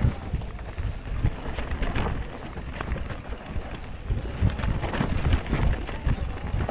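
Mountain bike clattering over a rough trail descent: irregular knocks and rattles from tyres and frame over a steady low rumble.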